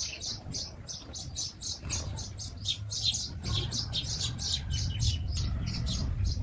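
Several small birds chirping in quick succession, several short high chirps a second, with a steady low rumble underneath.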